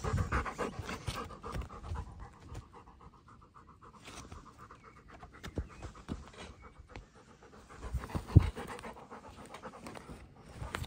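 A golden retriever panting close by, in a quick, even rhythm of breaths. One sharp thump about eight seconds in is the loudest sound.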